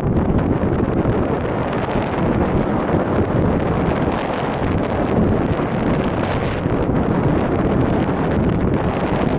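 Wind buffeting the microphone: a loud, steady rumble of noise with no let-up.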